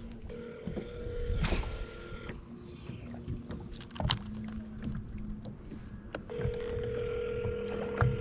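A boat motor whining with a steady pitch in two spells, one near the start and one near the end, with a few sharp knocks between.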